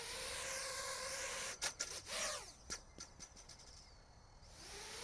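Armattan Rooster 5-inch FPV quadcopter's brushless motors on 6S spinning up to a steady whine for a short hover test. About two seconds in there are a few clicks and the pitch falls as the throttle drops. The whine fades, then rises again near the end.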